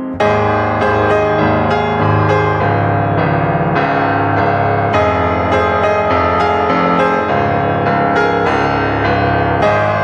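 Background piano music: a run of notes struck about twice a second over a sustained bass, with a new phrase coming in sharply just after the start.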